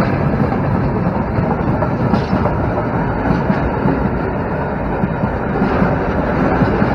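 Freight train wagons rolling past close by at low speed: a steady, loud rumble of steel wheels on the rails.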